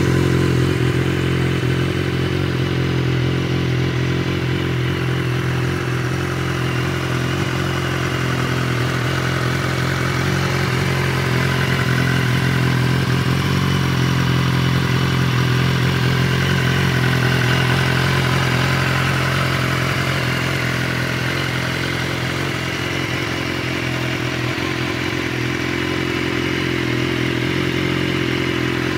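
BMW S1000RR's inline-four engine idling steadily.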